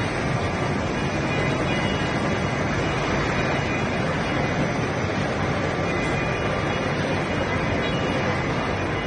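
Automatic wire mesh powder coating machine running: a steady, unbroken machine noise from its motors, with no change in pitch or level.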